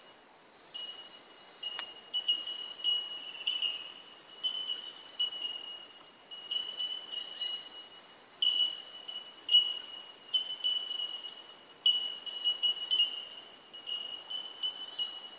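A chorus of bell miners (bellbirds) calling: many short high notes on nearly the same pitch, overlapping from several birds, several a second.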